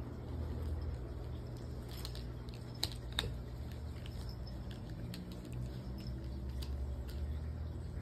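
A puppy chewing and mouthing a plush toy with a hard plastic part, giving scattered small clicks and crackles, two sharper clicks around three seconds in, over a steady low hum.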